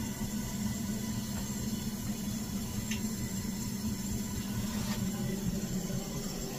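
Heatline gas boiler running after a repair to its damaged gas-valve cable: a steady low hum with a hiss, the fan and burner firing normally.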